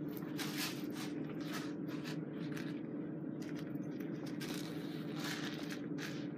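Rustling and scraping of belt gear and straps being handled, in a string of short bursts, over a steady low hum.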